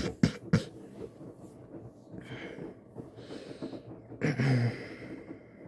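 A person breathing close to the microphone, with a few sharp clicks in the first second and a short, louder low sound about four seconds in.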